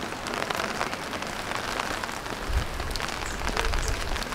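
Steady rain falling, an even hiss full of small drop ticks, with a low rumble about halfway through.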